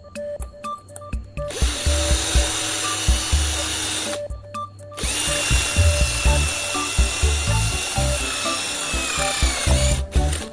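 A power tool runs twice: about a second and a half in it starts and runs for a few seconds, then after a brief pause it runs again for about five seconds, its high whine dropping in pitch as it winds down just before stopping. Background music with a steady beat plays throughout.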